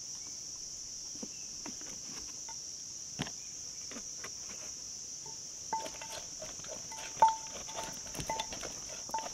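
Steady, high-pitched drone of insects such as crickets. Scattered clicks and knocks run through it, and from about six seconds in there are short repeated peeps, with one loud knock about seven seconds in.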